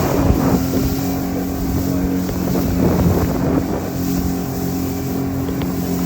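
Honda 50 hp four-stroke outboard motor running at a steady speed, its tone holding even throughout. A rushing noise swells briefly at the start and again about three seconds in.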